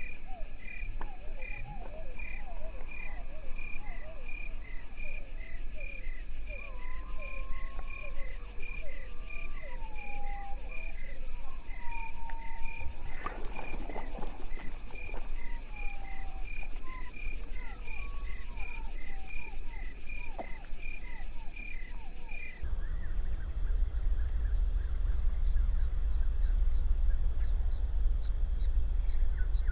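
Wetland chorus of calling frogs and insects: a steady chirp repeating a little more than once a second, with short gliding calls under it. A splash of water comes about 13 seconds in as the bullfrog lunges. About 23 seconds in, the sound changes abruptly to a higher-pitched repeating chirp over a low rumble.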